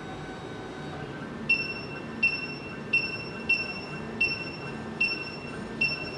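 SEC E9 automatic key cutting machine decoding a key: its motors run with a low steady hum, and from about a second and a half in a short high electronic beep sounds about every three quarters of a second.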